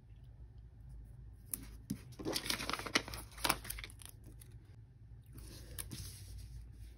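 Paper sticker being peeled off its backing sheet, a short papery tearing with small crackles about two to three seconds in, then softer paper rustling as hands press and smooth the planner pages near the end.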